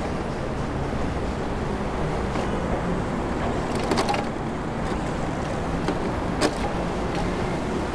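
Steady city traffic and road noise heard from a moving bicycle, with a sharp click about four seconds in and another about six and a half seconds in.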